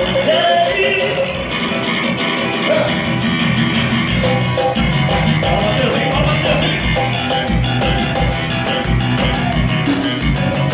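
Brazilian dance-band music in an instrumental passage: a lead melody over guitar and percussion, with a pulsing bass beat that settles in about halfway through.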